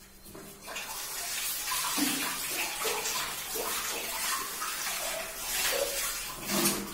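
Water running from a tap and splashing as a face is rinsed of cleanser, starting about half a second in.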